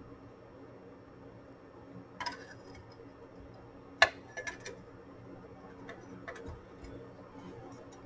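Scattered light clicks and metallic clinks as a circuit board and sheet-metal shield are handled and seated back into an 8-track player's chassis, the sharpest click about four seconds in.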